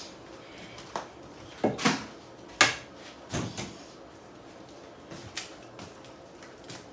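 Eggs being knocked against a bowl and cracked open: a few sharp knocks, the loudest about two and a half seconds in, then fainter clicks.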